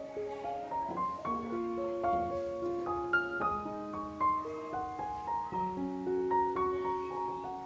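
Background piano music: a slow melody of single notes, each struck and left to ring.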